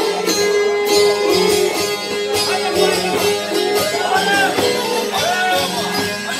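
Albanian folk instrumental: a çifteli and a sharki, both long-necked lutes, plucked in fast repeated notes, with a violin playing along.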